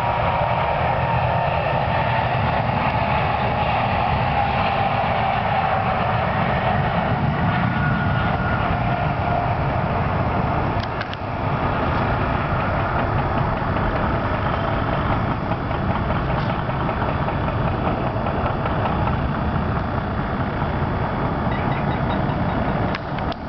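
Twin jet engines of a Boeing 777 running at takeoff thrust, a steady heavy noise with a higher whine that slowly falls in pitch over the first several seconds. The noise dips briefly about eleven seconds in.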